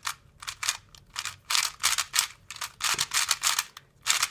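Gans III 57mm 3x3 speed cube turned quickly by hand for its first turns: a fast, uneven run of plastic clicks and swishes, several turns a second, with brief pauses.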